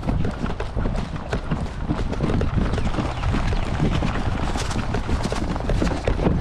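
Running footsteps: many irregular thuds over a steady low rumble.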